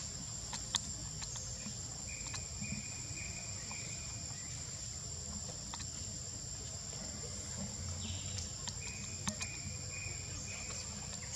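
Forest insects droning steadily at a high pitch, with a lower pulsing chirp that comes in twice and a few sharp clicks.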